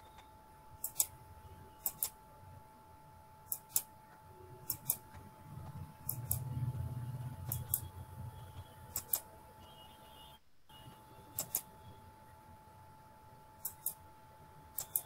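Computer mouse clicking, about a dozen sharp clicks mostly in quick pairs at irregular intervals, as waiting participants are admitted to an online meeting. A faint steady electrical whine runs underneath.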